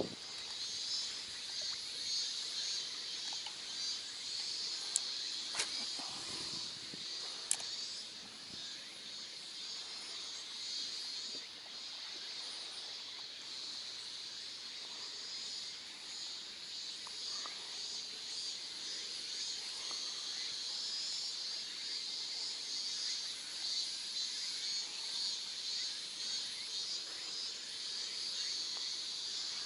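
A steady, high-pitched chorus of insects, with a few sharp clicks about five to eight seconds in.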